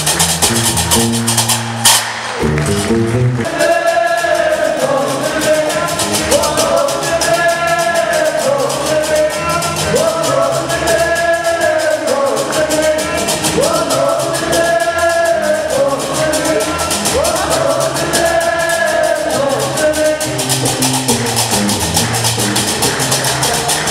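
Live Gnawa music: qraqeb (iron castanets) clacking in a steady fast rhythm over a low plucked bass line, likely a guembri. From about three seconds in, several voices sing together over it.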